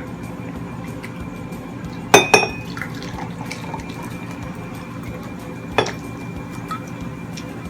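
Eating utensils clinking against dishes: a sharp clink with a brief ringing tone about two seconds in and a smaller one near six seconds, with faint ticks between, over a steady low hum.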